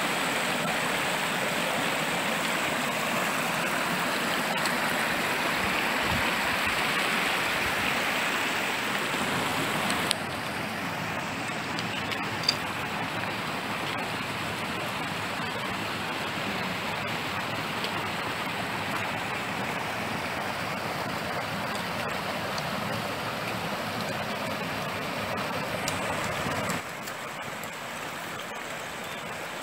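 Mountain stream running over rocks and small cascades, a steady rush of water. The level drops suddenly about ten seconds in and again near the end, with a couple of faint clicks.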